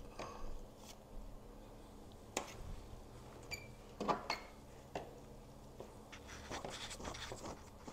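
Metal forks mixing noodles on an aluminium-foil tray: a few light clicks and scrapes with a soft crinkly rustle near the end.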